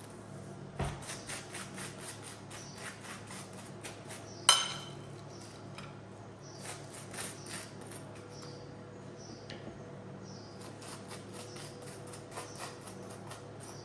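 A run of light clicks and knocks of things being handled, with one sharp knock about four and a half seconds in, over a steady low hum.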